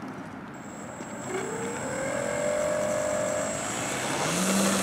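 RC model Yak aerobatic plane's motor and propeller spinning up for takeoff. The pitch rises from about a second in and levels off near the end as the plane rolls down the runway.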